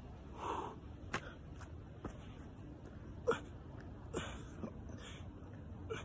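A man breathing hard through a burpee, with short forceful gasps and exhales as he drops into a plank, and a few sharp taps.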